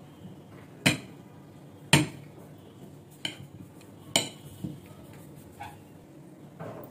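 Kitchen knife slicing peeled bananas on a plate, the blade knocking sharply against the plate with each cut: about five knocks, the loudest about one, two and four seconds in.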